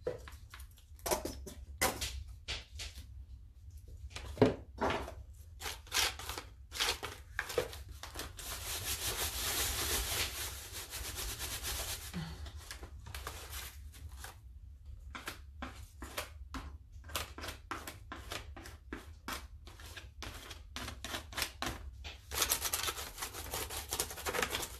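Paper being peeled and torn off a journal page: a long run of short scratchy rips and scrapes, with a steadier stretch of scraping about eight to twelve seconds in.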